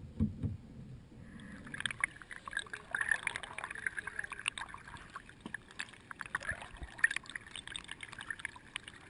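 River water splashing and lapping right against a camera at the waterline beside a wooden rowboat being rowed: a dense, crackly spatter that starts about a second in and runs on. A few low knocks come before it.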